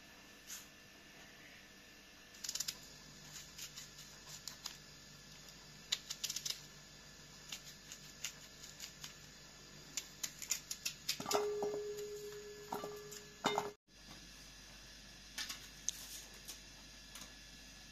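Scattered light clicks and taps, irregular and closely spaced for stretches. A steady whistle-like tone lasts about two seconds near the end of the taps.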